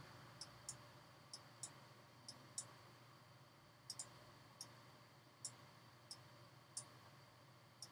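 Faint computer mouse clicks, about a dozen sharp single clicks at irregular intervals, over a low steady room hiss.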